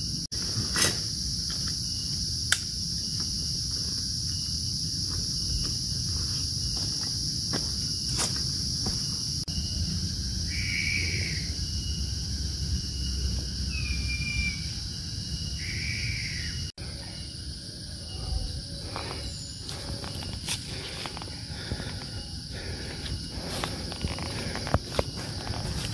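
Steady high-pitched drone of forest insects. About ten seconds in come three short calls from an unidentified animal that sound like a person crying. After a cut, footsteps crunch along the trail under the insect drone.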